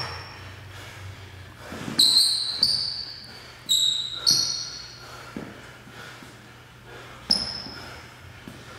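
A basketball dribbled on a hardwood court. It is cut by about five short, high sneaker squeaks, clustered in the middle and again near the end, which are the loudest sounds.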